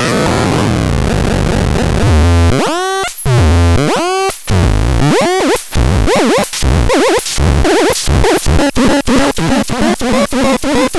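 Electronic synthesizer sounds: a harsh, noisy texture for about two seconds, then three swooping tones that rise and fall, each with a low thump, then a run of short blips that speeds up toward the end.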